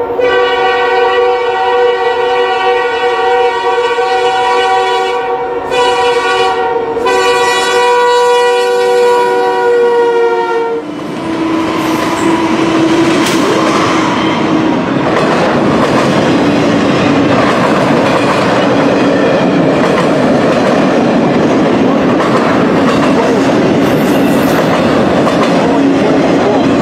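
CN freight locomotive horn sounding a long chord, broken twice briefly about five and seven seconds in, then cutting off about eleven seconds in. The uploader describes the horn as fouled. The train's freight cars then roll past with a steady rumble and clickety-clack of wheels over rail joints.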